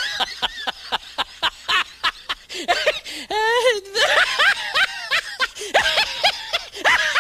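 High-pitched, sped-up snickering laugh: a quick run of short squeaky 'hee-hee' notes, with a warbling giggle about three seconds in.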